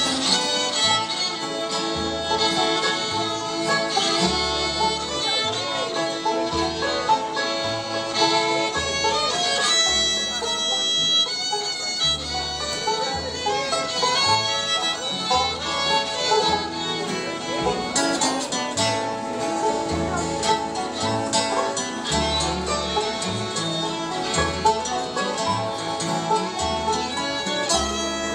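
Bluegrass band playing: fiddle, banjo, two acoustic guitars and an upright bass, the bass plucking a steady beat of low notes.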